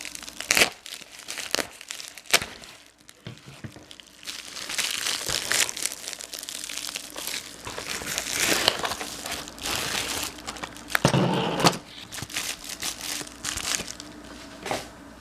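Plastic lure packaging being torn and crinkled by hand as it is forced open, with irregular crackling and sharp snaps; the loudest snaps come about half a second in, near two seconds and around eleven seconds.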